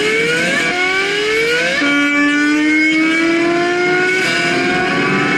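Bass guitar played with a slide: sustained notes that glide upward in pitch, four in a row, the third held longest with only a slow rise before a new note slides up near the end.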